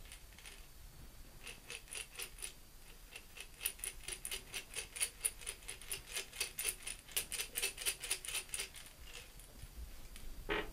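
A quick, uneven run of small clicks and rattles from a small object being handled, loudest in the middle and dying away, with one sharper click near the end.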